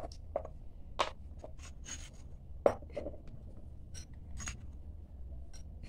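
Small metal spoon scraping and clinking against a small steel bowl while spooning flour, a series of light, scattered taps and scrapes with the sharpest click about two and a half seconds in.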